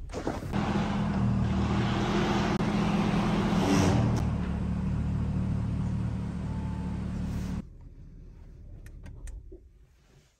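Lamborghini Urus's twin-turbo V8 running at idle, a little higher for the first few seconds and then settling lower. It stops abruptly about three-quarters of the way through.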